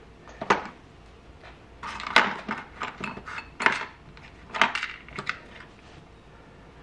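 Small metal tools and parts clinking and clicking as they are handled, a handful of sharp, irregular knocks, the loudest about two and four and a half seconds in.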